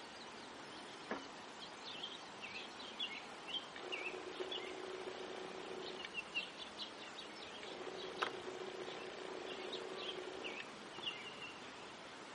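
Small birds chirping and twittering over a faint rural background. A faint steady low tone comes and goes in two long stretches of two to three seconds. A few sharp clicks cut through, the loudest about eight seconds in.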